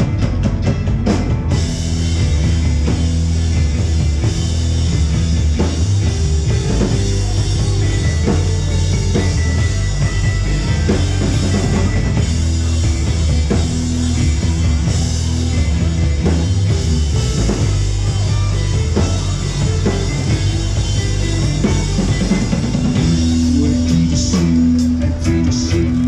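Live band playing a rock song with drums, bass and guitar, a steady beat over a sustained bass line.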